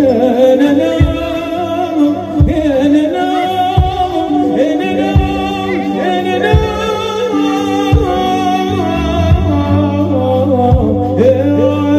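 A devotional song performed by orchestra and voices: a drawn-out, ornamented vocal line over strings and sustained low notes, with a low drum beat about every second and a half.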